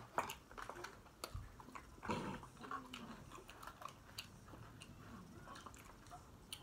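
Close-up crunching and chewing of tortilla chips, scattered sharp crunches and clicks, with a brief pitched voice sound about two seconds in.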